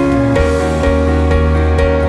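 Worship-band music: held keyboard chords over a strong bass line with a light steady beat, moving to a new chord about half a second in.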